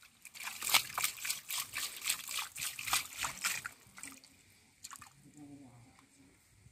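A hand splashing and sloshing through shallow muddy water, groping in the mud: a quick run of splashes for the first three or four seconds, then quieter.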